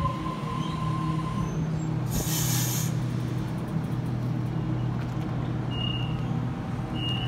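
Stopped Sydney Trains electric train at the platform, its equipment giving a steady low hum. A short hiss of released air comes about two seconds in, and short high beeps sound about once a second near the end.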